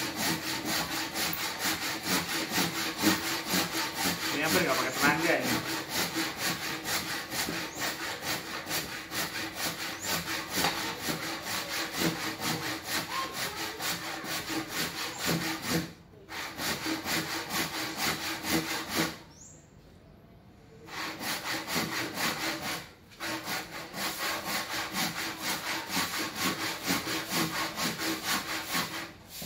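Bahco AP06 hand saw cutting through a thick squared timber beam in fast, steady back-and-forth strokes, stopping briefly a few times partway through.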